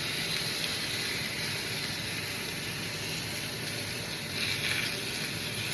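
Chicken frying in a pan, sizzling with a steady hiss.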